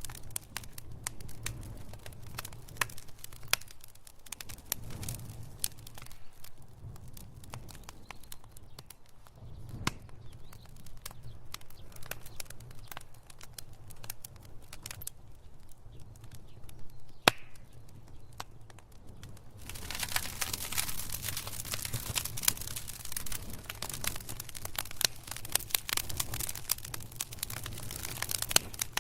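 Wood fire in a fireplace crackling and popping, with a low steady rumble underneath. The crackles thin out for a stretch in the middle, broken by one sharp pop, then grow dense and busy about two-thirds of the way through.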